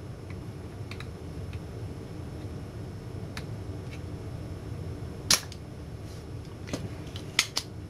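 Spring-loaded desoldering pump (solder sucker) clicking as it is worked at a heated joint, pulling molten solder off the leads of a failed capacitor on an LCD monitor power board. One loud snap about five seconds in and two more close together near the end, with fainter clicks between, over a steady low hum.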